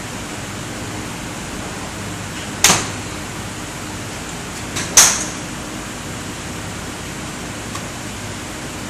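Golf clubs striking balls: two sharp cracks about two and a half seconds apart, the second the louder, over a steady hiss.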